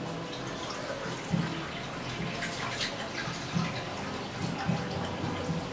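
Water running from a tap into a bathroom sink, with small splashes and drips.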